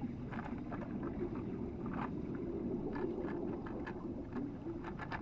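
Muffled underwater sound: a steady low rumble with faint, irregular clicks and ticks.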